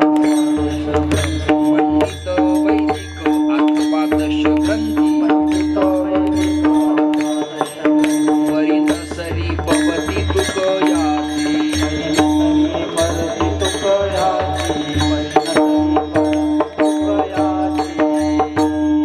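Devotional kirtan accompaniment: a harmonium-style held drone note with a melody over it, a hand drum playing low strokes, and small hand cymbals striking a steady beat.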